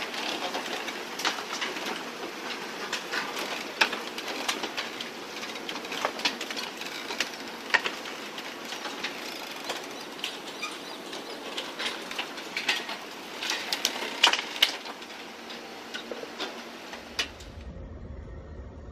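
Moored motor boats and marina pontoons being crushed and shoved by a cargo ship's bow: a steady scraping hiss with many irregular sharp cracks and crunches of breaking hulls and fittings. Near the end it gives way to a quieter low hum.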